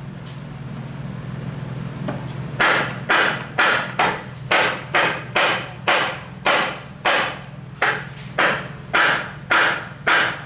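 Hammer striking metal in a steady rhythm of about two blows a second, starting a couple of seconds in, the blows ringing briefly. A steady low hum runs underneath.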